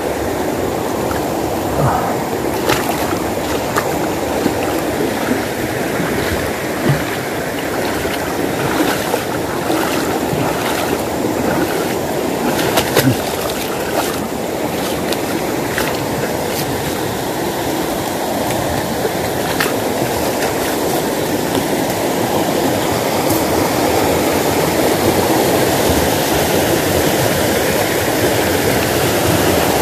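Shallow rocky stream rushing over stones in a steady wash of water, growing a little louder near the end. Scattered short clicks and knocks sound over it in the first half.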